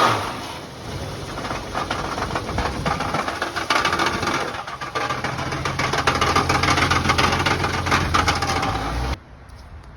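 1987 Jeep YJ's six-cylinder engine running with a rapid rattle, the 'death rattle' whose cause is still unknown: it is not the exhaust, and the plugs look fine. The sound cuts off suddenly about nine seconds in.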